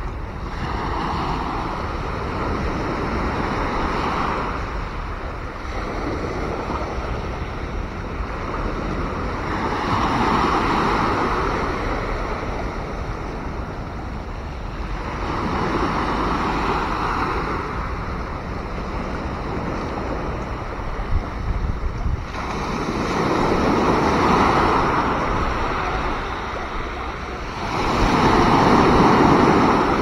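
Sea waves breaking on the shore, surging and falling back every several seconds over a steady wash of surf, the loudest surge near the end.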